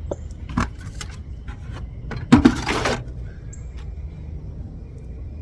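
Hands digging through loose soil in a potato bucket: a few short knocks, then a louder scraping rustle about two seconds in, over a steady low rumble.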